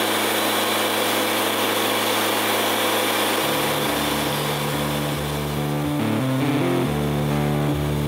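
Background music fading in: a sustained droning chord, then a guitar-and-bass line stepping from note to note from about three and a half seconds in.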